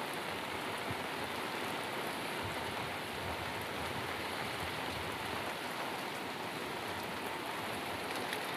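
Steady rain falling, an even unbroken hiss of heavy rainfall.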